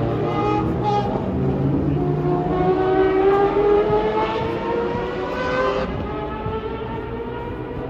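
Mazda four-rotor rotary race car engine accelerating, its pitch climbing steadily for several seconds, then dropping suddenly near six seconds in.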